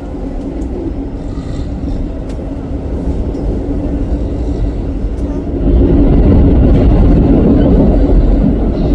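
Subway train running: a steady low rumble with a constant hum, swelling much louder for about three seconds a little past the middle.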